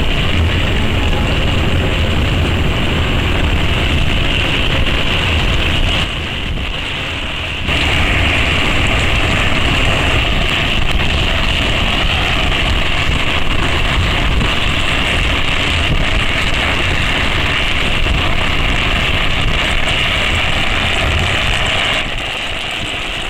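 Wind rushing over the microphone and steady road noise of a fast downhill ride, with a low rumble under it. It eases briefly about six seconds in and again near the end.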